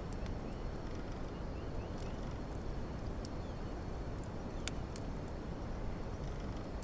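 Wood fire burning, a steady low rush of flames broken by sharp crackles and pops every second or two, the loudest a little under five seconds in.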